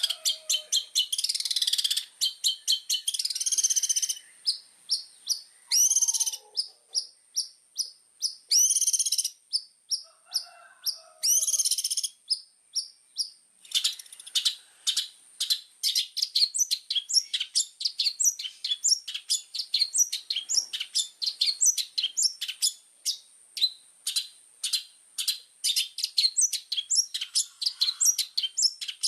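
Long-tailed shrike (cendet) in full song: harsh rasping bursts broken by short runs of notes, then from about halfway a fast, unbroken stream of sharp chirping notes, several a second.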